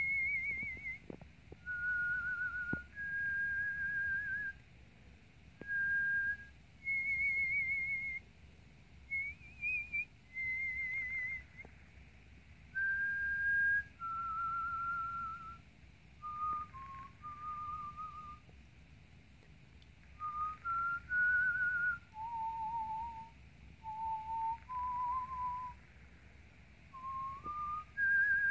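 A person whistling a slow tune by mouth: a string of held notes with a wavering vibrato, each about half a second to a second long with short gaps between them. The notes sit high at first and step lower in the second half.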